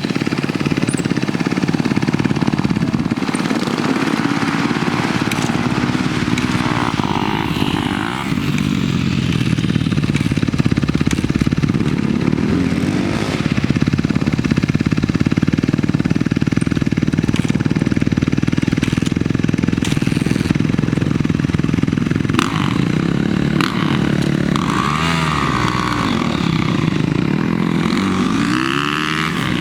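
Dirt bike engine being ridden hard on a motocross track, its pitch rising and falling repeatedly as the throttle is opened and closed through the gears.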